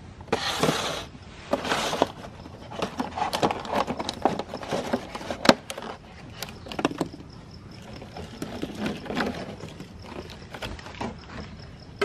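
Clear plastic clamshell container crackling as it is handled and opened, with many sharp clicks and taps as hard, crunchy cookies are taken out and set down on a wooden tabletop. The loudest tap comes about halfway through.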